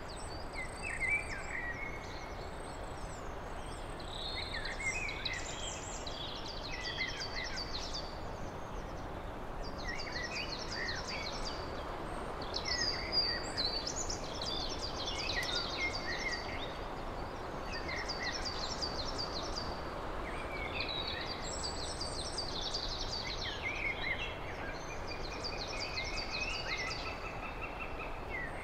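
Songbirds singing in a chorus of short, high phrases, several of them quick runs of repeated notes, coming back every few seconds over a steady background hiss.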